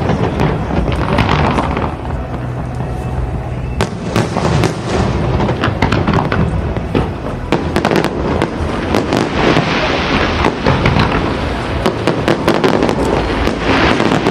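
Aerial fireworks display: a dense, continuous run of sharp bursts and crackles in quick succession.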